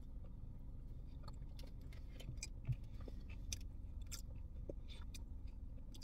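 A person chewing a mouthful of potato salad with the mouth closed: soft, scattered wet mouth clicks over a low steady hum, with one brief soft thump a little before the middle.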